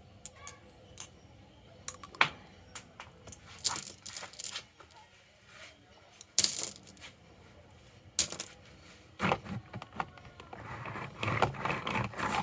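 Marbles clicking and clacking as they run down a wooden marble track, with scattered sharp knocks and a denser rolling rattle near the end.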